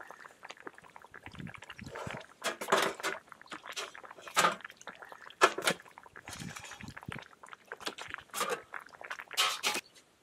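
Broth dripping and splashing as a stewed sheep's head and meat are hooked out of the pot, with irregular clinks and knocks of a metal hook against a stainless steel tray.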